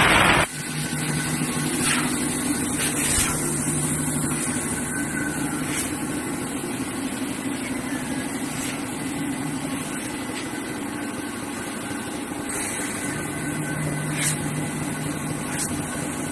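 CNC fiber laser cutting machine running: a steady machine hum with a low tone that drops out after about four seconds and returns near the end, and a few short bursts of noise. A loud short burst of noise comes right at the start.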